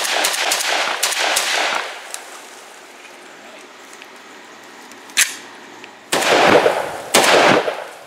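Molot VEPR-12 semi-automatic 12-gauge shotgun firing light #8 birdshot loads: several shots in quick succession in the first two seconds, each with a short echo. After a pause comes a single sharp click about five seconds in, then two more shots about a second apart near the end.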